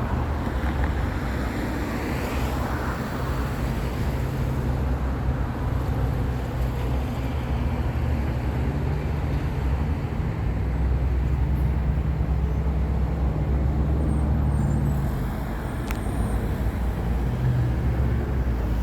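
Road traffic running past at a highway ramp, with a steady low engine drone from a nearby vehicle that grows louder and then falls away about fifteen seconds in.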